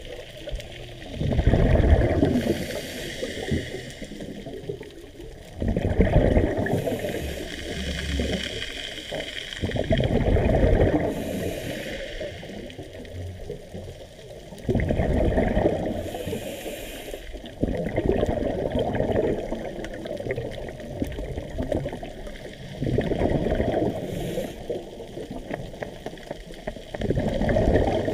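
Scuba diver breathing through a regulator underwater: each exhalation sends out a loud rush of bubbles lasting a few seconds, recurring every four to six seconds, with a brief hiss of the inhale between them.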